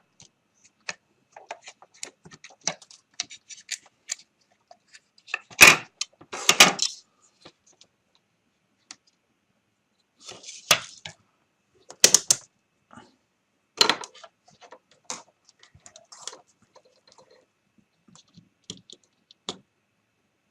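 Scattered small clicks and knocks of objects being handled on a workbench, with a few louder clattering knocks about six, twelve and fourteen seconds in.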